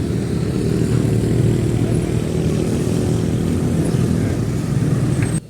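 Motor vehicle engine running steadily amid road traffic. The sound cuts out abruptly for a moment just before the end.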